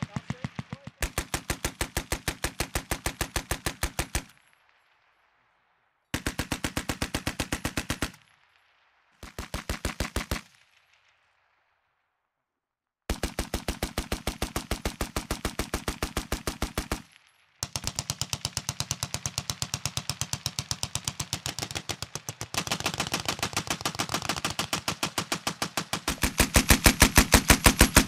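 Vickers .303 water-cooled machine guns firing automatic bursts, a steady rattle of about eight shots a second. Several bursts of two to four seconds are broken by short pauses, then one long burst runs through the last ten seconds and gets louder near the end.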